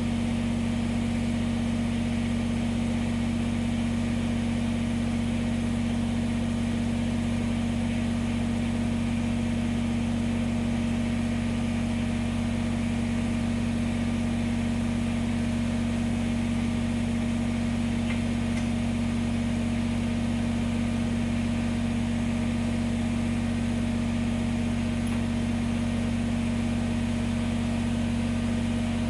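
Kubota BX23S tractor's small three-cylinder diesel engine idling steadily, its pitch and level unchanging throughout.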